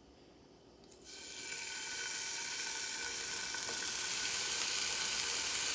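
Food going into a hot frying pan: quiet for about a second, then a sudden sizzle that swells and settles into steady, loud frying.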